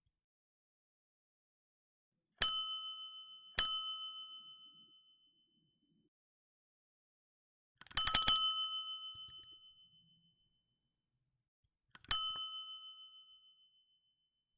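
Bicycle bell rung in separate goes: two single dings about a second apart, then a quick rattling ring of several strikes, then one more single ding near the end. Each ring fades out within about a second, with silence between.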